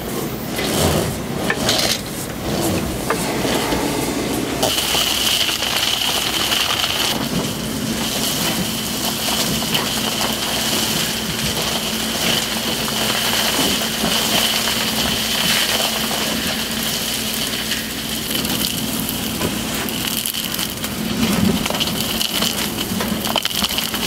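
Gas-engine insulation removal vacuum at work: a steady rush of air with a crackling rustle as loose fibreglass insulation is sucked up the hose. A steady high-pitched whine joins about four and a half seconds in.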